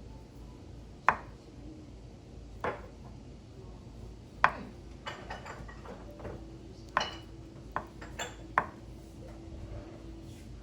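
Kitchen clatter: dishes and utensils clinking and knocking, about nine sharp clinks at irregular intervals.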